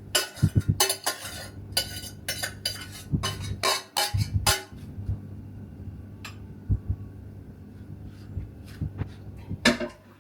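Dishes and cutlery clinking and clattering: a quick run of knocks and clinks for the first four or five seconds, then scattered ones.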